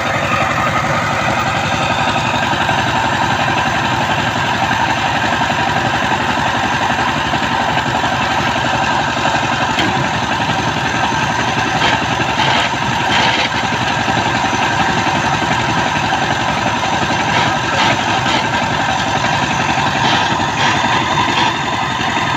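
Two-wheel power tiller's single-cylinder diesel engine running steadily under load as its rotary tines till dry soil. A few brief knocks come through about halfway through and again near the end.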